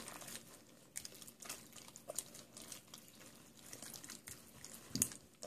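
Small hands squishing and poking gel-glue slime in a glass bowl: faint irregular wet squelches and small clicks, with one sharper click near the end.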